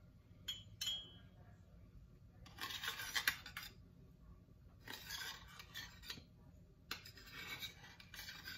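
A metal spoon scraping steamed idlis out of the moulds of a stainless steel idli plate: three rasping scrapes a couple of seconds apart, after two light clinks near the start.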